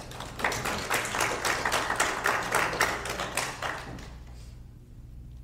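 An audience applauding for about four seconds, the clapping fading away toward the end, over a steady low hum.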